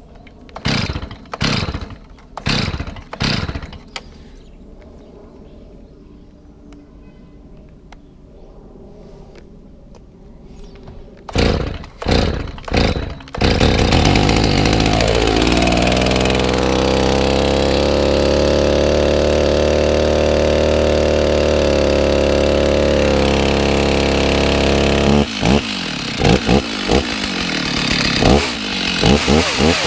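Stihl chainsaw's two-stroke engine being pull-started: a few short pulls, a pause, then more pulls until it catches about thirteen seconds in. It then runs steadily for about ten seconds, and near the end it is revved sharply several times.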